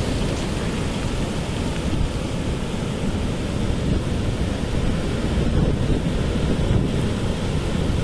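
Ocean surf breaking on a reef and washing over a rocky shore in a steady rush, with wind buffeting the microphone.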